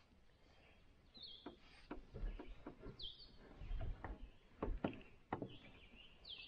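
A bird giving a few short downward chirps, faint, over a scatter of light clicks and knocks.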